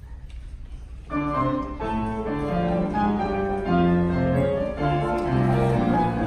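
Faint room noise, then about a second in a keyboard starts playing sustained chords as the introduction to a choral piece.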